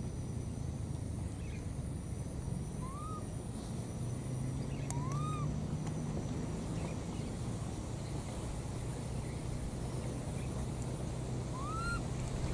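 Baby macaque giving three short coo calls, each rising then falling in pitch, spaced several seconds apart, over a steady low rumble.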